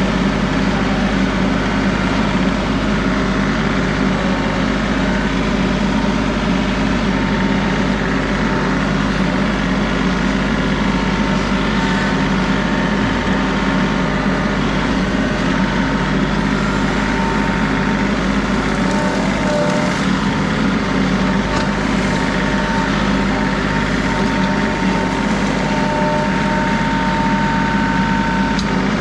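John Deere 3038E compact tractor's three-cylinder diesel engine running steadily.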